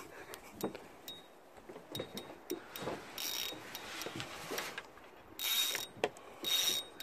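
Spinning fishing reel working against a hooked fish: short bursts of mechanical whirring and clicking from the reel, loudest three times in the second half.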